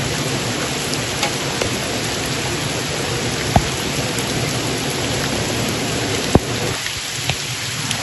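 Waterfall pouring into a rock pool close by: a steady, dense rush of water, broken by two sharp clicks about three and a half and six seconds in. The rush thins a little near the end.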